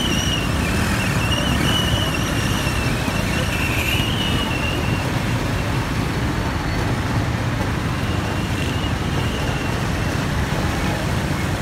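Steady traffic noise on a waterlogged street, where auto-rickshaws and motorcycles move through floodwater. A faint wavering whine runs through the first five seconds.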